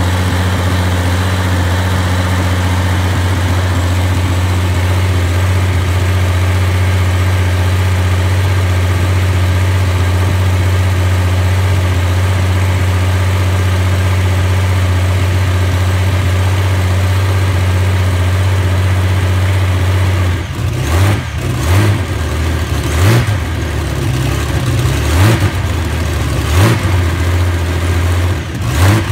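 Allison V-1710 liquid-cooled V-12 aircraft engine running steadily at idle, then from about twenty seconds in its throttle is blipped so that it revs up and drops back several times in quick succession.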